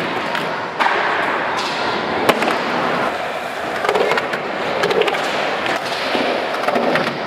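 Skateboard wheels rolling on a concrete floor and a wooden quarter pipe, with several sharp board clacks and knocks; the loudest knock comes about two seconds in.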